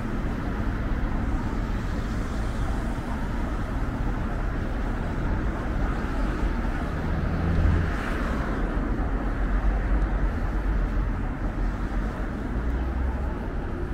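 City street traffic noise, a steady hum of passing cars, with one vehicle passing close and swelling louder about halfway through.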